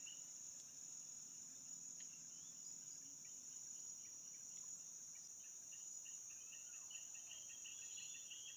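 Insects in the riverside vegetation, a steady, shrill high-pitched drone with faint rapid chirping that grows busier near the end.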